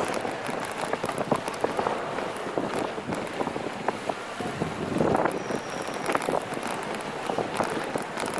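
Bike tyres rolling over park ramps, with scattered clicks and knocks from the bike and wind buffeting the handlebar-mounted microphone.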